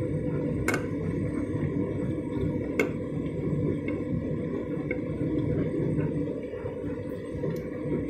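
Candy front-loading washing machine tumbling a big, very sudsy load in rinse water: the drum turning and water sloshing steadily, with a sharp click under a second in and another about three seconds in.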